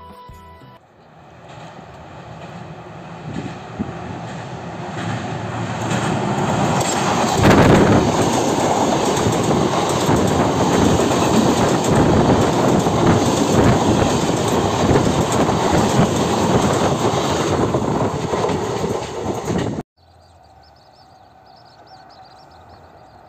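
A train passing, its noise building over several seconds into a loud, steady rumble, then cut off abruptly near the end.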